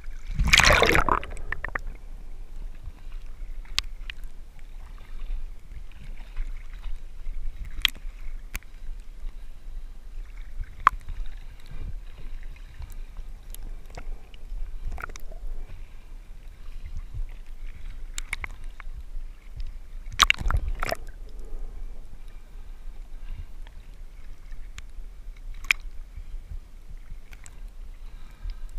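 Seawater sloshing and gurgling around a camera held at and under the surface while snorkeling, heard muffled with a steady low rumble. A loud splash comes about a second in and another about twenty seconds in, with scattered small clicks and knocks in between.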